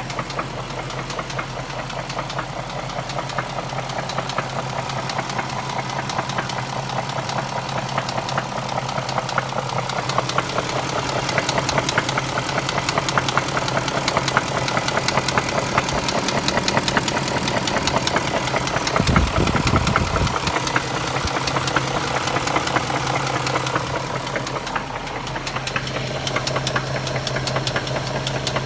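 BMW X5 4.6is's M62TU 4.6-litre V8 running with a rapid, continuous knock. The engine note rises about a third of the way in and settles back near the end, with a brief low rumble about two-thirds through.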